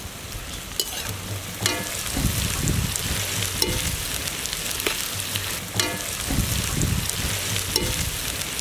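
Shredded cabbage, carrot and green chillies stir-frying in oil in a steel kadai: a steady sizzle, with a metal slotted spoon clinking against the wok about five times as the vegetables are stirred.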